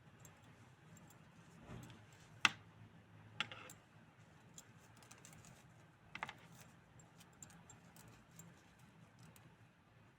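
Light clicks and taps of a small plastic doll and its packaging being handled, with three sharper clicks, the loudest about two and a half seconds in.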